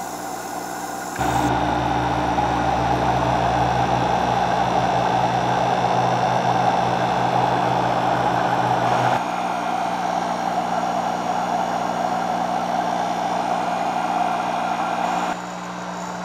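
Steady mechanical hum and hiss of hydroponic grow-room equipment, with low steady hum tones underneath. It steps louder about a second in and drops back near the end.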